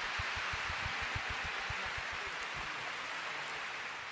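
Applause: dense, steady clapping that begins to fade near the end.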